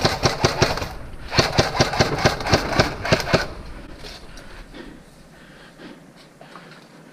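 Quick running footsteps on hard ground, about three to four sharp steps a second in two spells, stopping about three and a half seconds in, after which only faint shuffling is left.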